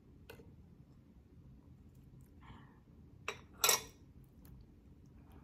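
Fingers pulling apart boiled pork hock in a glass dish. There are a few soft clicks, and one louder short handling noise about three and a half seconds in.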